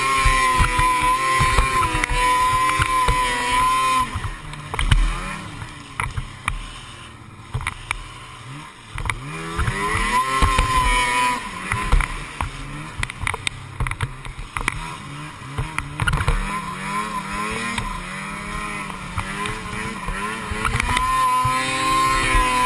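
Snowmobile engine running at high revs, easing off about four seconds in, then revving up and down and running fast again, with frequent short knocks.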